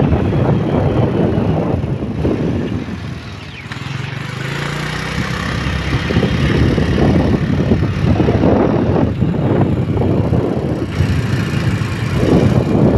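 Wind buffeting the microphone of a moving motorcycle, with engine and road noise underneath. The noise comes and goes in irregular gusts and dips briefly about three seconds in.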